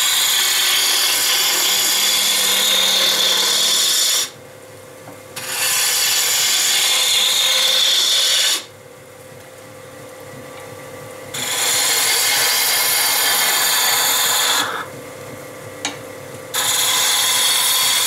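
A wood lathe spinning a maple blank while a hand-held turning tool cuts it down to a 1-inch dowel. There is a loud cutting noise in four passes. Between them come three short pauses, about 4 s, 9 s and 15 s in, where only the lathe's running hum is heard.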